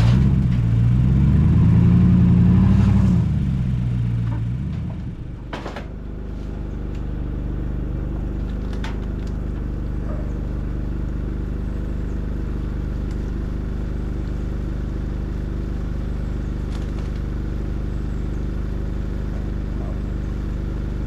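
A motor vehicle's engine revs up for about three seconds and then drops away. A single sharp knock comes at about five and a half seconds, and the engine then settles into a steady, even run.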